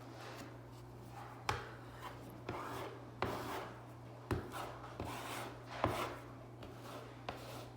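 A 6-inch drywall knife scraping quick-setting joint compound onto a ceiling patch: rasping strokes with a sharp tap about once a second as the blade meets the surface.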